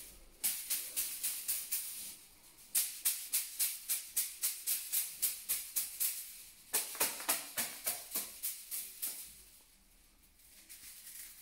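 Split-bamboo massage whisks rapidly beating a person's body, a dry rattling clatter of quick strikes at about five a second. The strikes come in three runs and stop about two seconds before the end.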